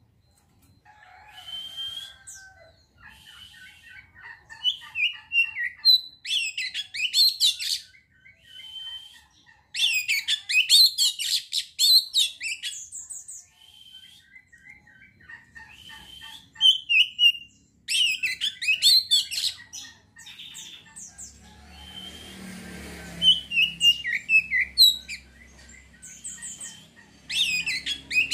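Oriental magpie-robin (kacer) singing: loud, varied phrases of whistles, chirps and rapid trills in bursts with short pauses between them. A low rumble sits underneath from about three-quarters of the way through.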